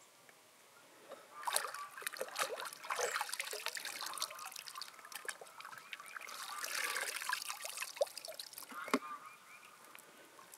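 Water sloshing and trickling as hands work through a shallow pool while the person stands in it, in two stretches with a lull between, followed by two sharp clicks near the end.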